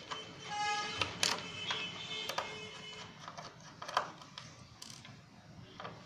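Small screwdriver working on the cover screws of a Western Digital Scorpio Blue laptop hard drive: scattered sharp metal clicks and small rattles as the screws are turned and the tool is handled.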